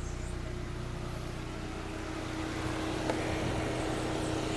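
Chevrolet Prisma's engine idling steadily, with a steady hum tone over it and a faint click about three seconds in.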